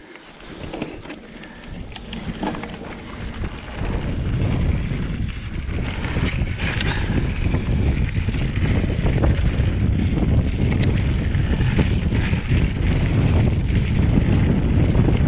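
Wind rushing over the camera microphone as a mountain bike rolls downhill on a dirt singletrack. It builds over the first few seconds as the bike picks up speed, then holds as a steady low rumble, with tyre noise and occasional clicks and rattles from the bike on the rough trail.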